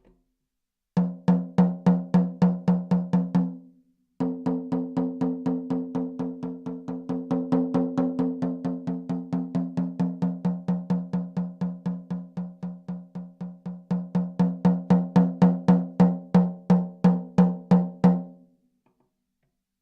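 13-inch Pearl Rhythm Traveler snare drum with an Evans Genera Dry coated batter head, struck in steady single strokes at about four or five a second. Each stroke has a ringing tone and a wire rattle. A short run of strokes is followed by a brief stop, then a long run that softens in the middle and swells louder before it stops near the end.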